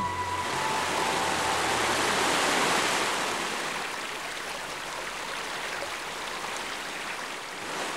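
Fast mountain river rushing over rocks: a steady rush of white water, loudest in the first three seconds and easing a little after.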